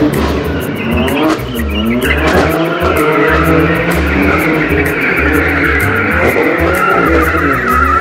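A BMW M3's tyres squeal through a long drift while the engine revs rise and fall, under music with a heavy, regular bass beat.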